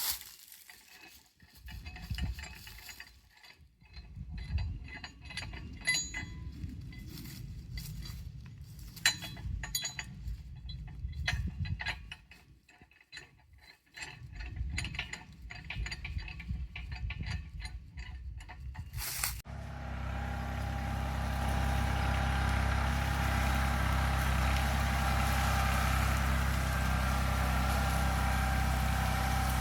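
Metal clinks and rattles of a steel cable and its clasp being handled and hooked up, with rustling. About two-thirds of the way through, this gives way abruptly to the Kubota LX2610 compact tractor's diesel engine running steadily.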